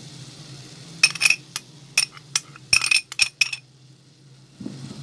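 A metal spoon clinking and tapping against metal cookware while ingredients are added to the karahi: a quick run of sharp, ringing clinks starting about a second in and lasting two to three seconds, over a low steady hum.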